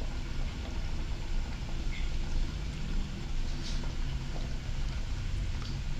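A steady low hum, with a few faint soft clicks as tomato wedges are set into a pan of simmering fish curry and pressed in with a ladle.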